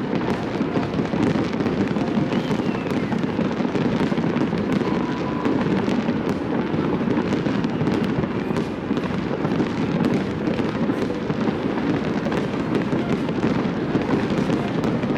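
Fireworks display: a continuous barrage of many overlapping bangs and crackles, holding an even level without a pause.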